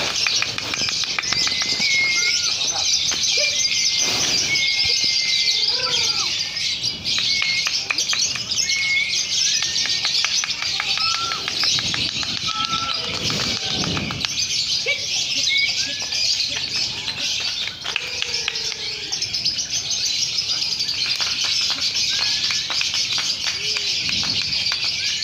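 Many young lovebirds chattering and trilling at once during a contest round: a dense, continuous high-pitched twittering with no break.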